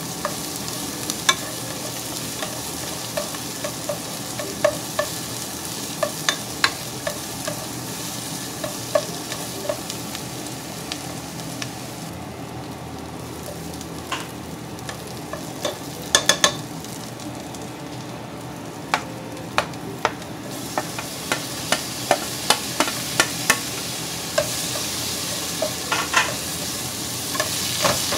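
Onions sizzling in oil in a nonstick pot while a utensil stirs them, clicking and tapping against the pot many times. The sizzle drops for several seconds in the middle and grows louder near the end.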